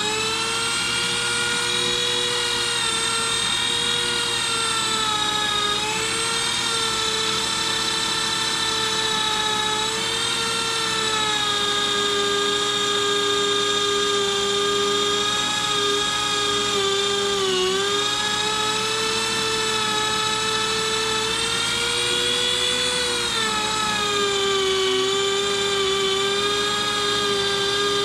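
Handheld rotary tool running at high speed, a steady high whine with its bit on the rusted iron of a relic Civil War carbine, knocking off the loose rust flakes. The pitch wavers and dips several times as the bit works the metal.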